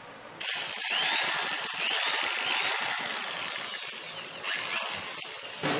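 Electric hand drill run by its trigger as a test after being opened up and repaired. The motor whine rises and falls in pitch for about four seconds, then comes a second short run of about a second that stops abruptly.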